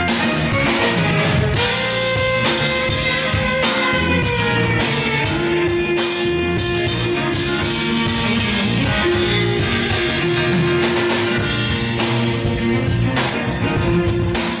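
Live band playing a rock-style instrumental number on electric guitar, violin, congas, drum kit, bass and keyboard, with a steady beat and long held melody notes.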